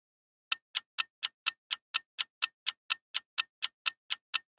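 Clock-ticking sound effect of a quiz countdown timer: sharp, evenly spaced ticks about four a second, starting about half a second in.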